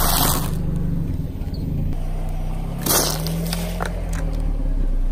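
A car tyre rolling over a drinks carton, crushing it and bursting it open, with several sharp crackles about three seconds in. The car's engine hums low and steady underneath, and a crunch from the tyre crushing something dies away in the first half second.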